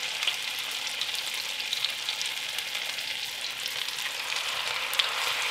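Parmesan-crusted steak cutlets frying in hot browning butter in a frying pan: a steady sizzle with many small crackling pops.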